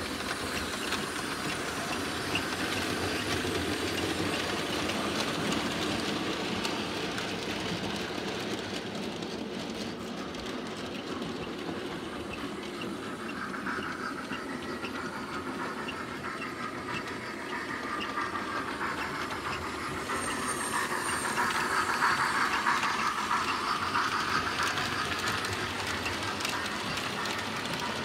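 00 gauge model goods train of coal wagons running along the layout's track, a steady rattling rumble of small wheels on rail that grows louder as the train comes close, loudest a little over two-thirds of the way through.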